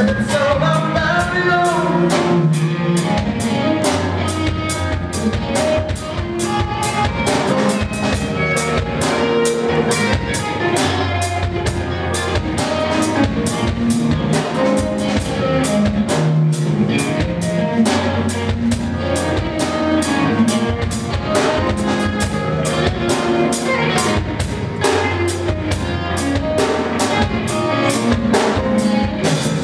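A live band playing an instrumental passage of a love song: a drum kit keeping a steady beat with snare and bass drum, under a bass line and melodic instruments, with no singing.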